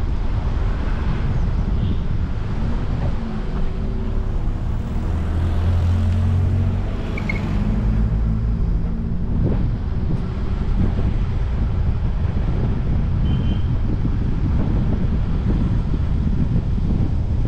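Car driving on a hill road, picked up by a dash cam: a steady low rumble of road and wind noise. For a couple of seconds about a third of the way in, an engine's hum stands out above it.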